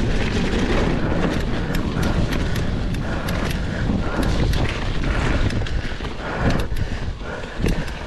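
Mountain bike riding fast down a dirt trail: wind rushing over the microphone and the bike rattling, with many sharp knocks as it goes over bumps.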